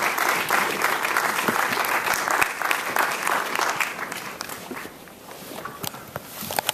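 Audience applauding, a dense patter of many hands clapping that thins out and dies away about four to five seconds in, leaving a few scattered clicks and knocks.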